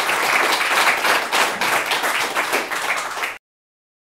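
Audience applauding: a dense crowd of clapping hands that cuts off suddenly about three and a half seconds in.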